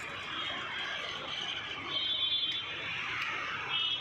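Steady roadside mechanical and traffic noise, with two short high-pitched tones, one about two seconds in and another near the end.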